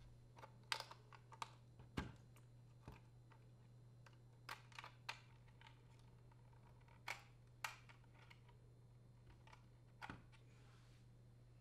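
Plastic wire-harness connectors clicking as they are pulled one by one off a dishwasher's electronic control board: about ten light, scattered clicks and snaps.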